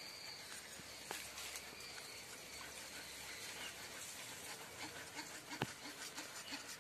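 Spoon stirring and pressing blended green-mango pulp through a plastic strainer over a steel bowl, with a couple of short clicks of the spoon, one about a second in and a sharper one near the end. Faint outdoor background of birds and insects.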